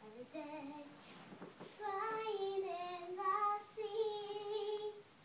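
A young girl singing: a few short notes, then from about two seconds in, long held notes that stop just before the end.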